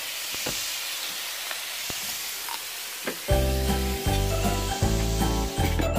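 Sausages and steaks sizzling on a griddle: a steady hiss with a few small pops. About three seconds in, background music with pulsing bass notes and tinkling tones comes in and takes over.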